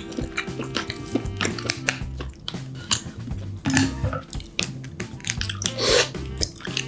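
Steamed king crab shell clicking and crackling as chopsticks scrape and pick the meat out of it, many short sharp clicks and scrapes, over quiet background music.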